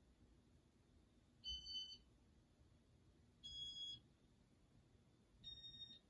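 Three short electronic beeps about two seconds apart, each a little higher in pitch than the last, from a Casablanca Victorian II ceiling fan's Inteli-Touch control, signalling the fan's speed being stepped up. The fan motor itself is nearly silent between them.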